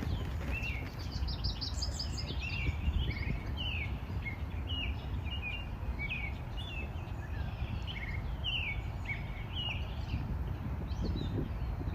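Songbirds chirping: many short, quickly repeated calls throughout, with a rapid high trill about a second in, over a steady low rumble.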